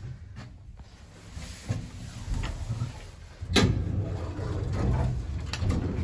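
Lift arriving at the ground floor and its doors being opened, with a sharp clunk about three and a half seconds in, followed by low rumbling as the hinged landing door is pushed open by hand.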